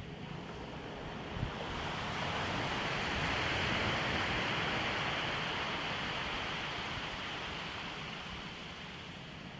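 Sea waves washing onto a beach: a surge of surf swells about two seconds in and slowly fades away.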